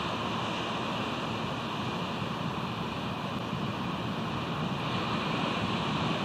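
Steady, even rushing of ocean surf and wind.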